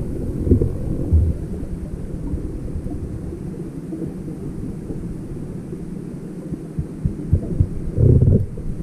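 Underwater camera audio during a swim over a rocky seabed: a muffled low rumble of water moving against the housing, with a few dull thumps about half a second and a second in and a louder burst of rumble about eight seconds in.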